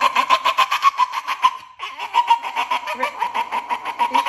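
Staffordshire bull terrier screaming in excitement: a rapid, pulsing run of yelping squeals, about seven a second, that breaks off briefly just under two seconds in and starts again.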